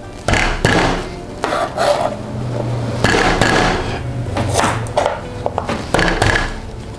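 Kitchen knife knocking and cutting on a plastic cutting board in irregular strokes as galangal root is sliced and bruised, with a garlic clove crushed under the flat of the blade near the end.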